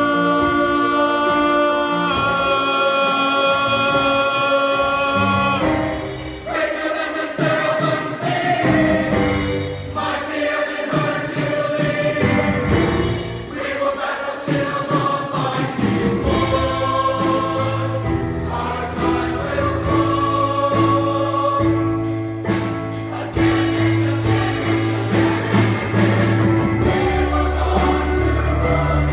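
Show choir singing over a band backing track: a long held chord for about the first six seconds, then the voices and accompaniment carry on with a steady drum beat.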